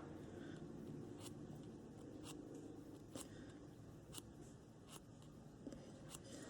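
Faint, short scratching strokes, about one a second, of a small tool scraping muck out of the slots between the copper segments of a Honda TRX500FA starter motor's commutator.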